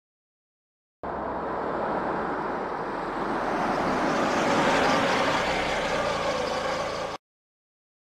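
Wind sound-effect sample: an even rush of wind that starts abruptly about a second in, swells toward the middle and cuts off suddenly near the end.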